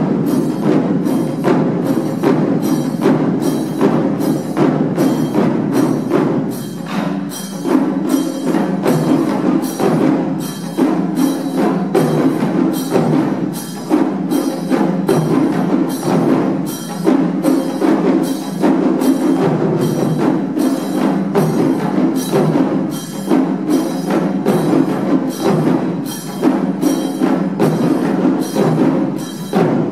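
Japanese taiko ensemble playing: several nagado chu-daiko barrel drums struck with bachi sticks in a steady, driving rhythm, with sharp clicking strokes among the deep drum beats.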